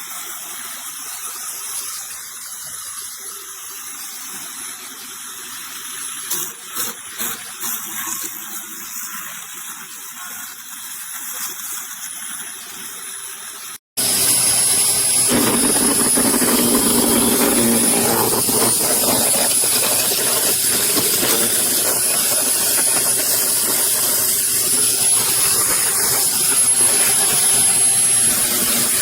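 A quieter hiss with a few clicks, then, after a sudden cut about halfway through, the AIVOLT 15A electric wood chipper's motor running loud and steady with a high whine.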